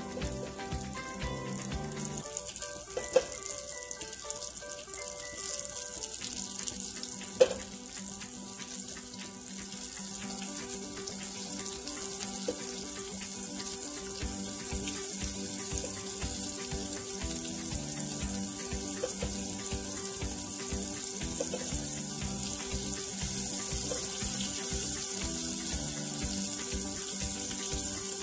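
Breaded meatless chicken strips frying in hot oil, a steady sizzle that grows gradually louder. Two sharp clicks about three and seven seconds in.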